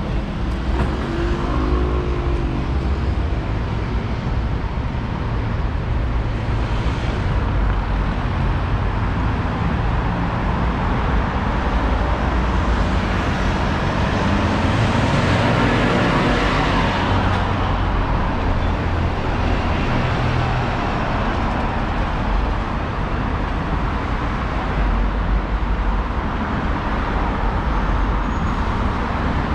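Road traffic, with the steady noise of cars and engines going by. One vehicle passes close about halfway through.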